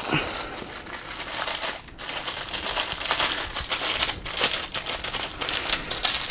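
Plastic packaging crinkling and rustling as it is handled, with a run of small crackles and ticks and a brief pause about two seconds in.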